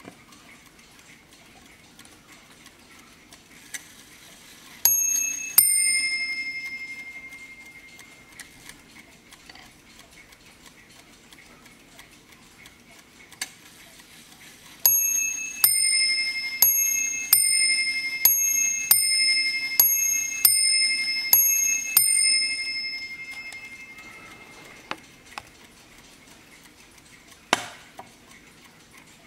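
Warmink Dutch mantel clock striking on its two bells: one ding-dong pair a few seconds in, then a run of about ten strikes alternating between the two bells, each ringing out, with the movement's ticking faint underneath. A single sharp knock near the end.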